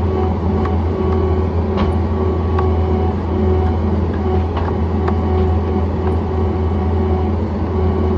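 John Deere 317 skid steer's diesel engine running steadily, a constant deep drone, with scattered clicks and knocks from the machine over it.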